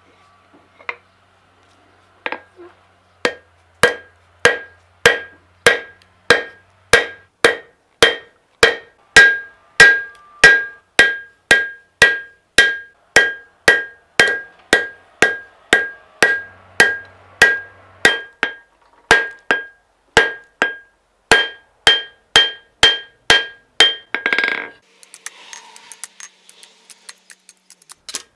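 Hand hammer striking a hot steel knife blade on an anvil, about two ringing blows a second, as a Yakutian knife blade is forged and drawn out. The blows stop a few seconds before the end, followed by a short noisy burst and a faint scraping.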